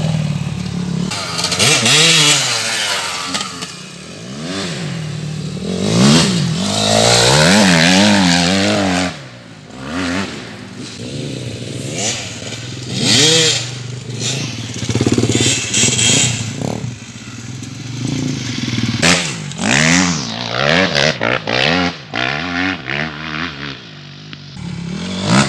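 250cc motocross dirt bike engine revving hard in repeated surges, its pitch rising and falling over and over as the throttle is opened and closed, with short drops where the engine falls back.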